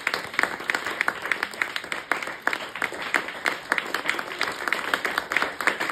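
A small audience applauding, with individual hand claps standing out in a steady, irregular patter.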